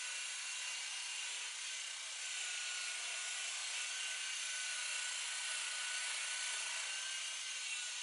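Electric buffer running steadily, its pad rubbing on oxidized fiberglass gelcoat, with a constant motor whine.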